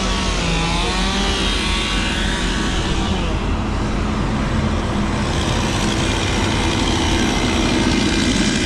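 Large diesel engine running steadily.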